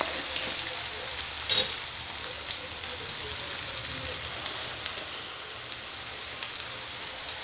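Chopped onions, dried red chillies and turmeric sizzling steadily in hot oil in a kadai, with small crackles. A brief sharp knock about a second and a half in.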